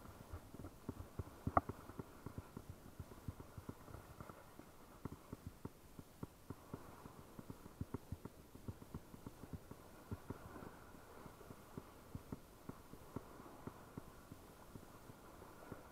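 Muffled, irregular low knocks and rubbing, several a second, from an angler jigging a spinning rod and turning the reel, picked up by a body-worn camera. One sharper click about a second and a half in.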